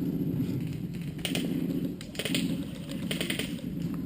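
Airsoft gunfire: three short bursts of rapid clicking shots about a second apart, over a steady low hum. The players take the shots for a CO2 gas-powered gun.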